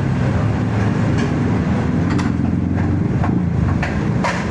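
A machine running with a steady low drone, with a few sharp clicks or knocks over it.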